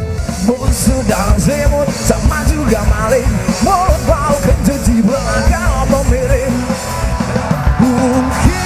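Loud rock music with driving drums and a wavering, bending lead melody line over the band.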